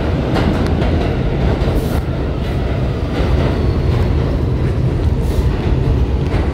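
New York City subway train (W service) pulling into the station, its cars rolling past close by with a loud steady rumble and scattered clicks from the wheels and rails.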